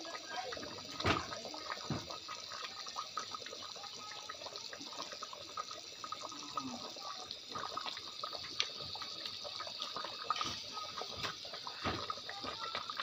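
Thick beef curry gravy boiling in a pot, bubbling with a steady run of small, irregular plops and pops.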